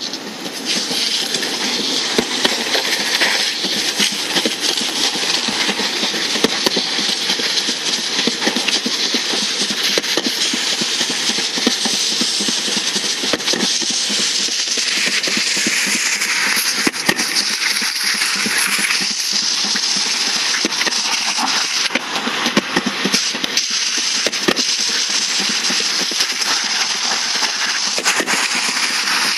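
Skate wheels rolling fast over concrete pavement: a steady, loud rolling rattle with many sharp clicks and knocks throughout.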